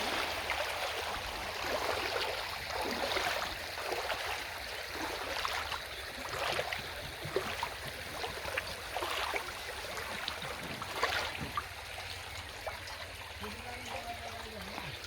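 River water flowing and splashing, with irregular splashes and trickles.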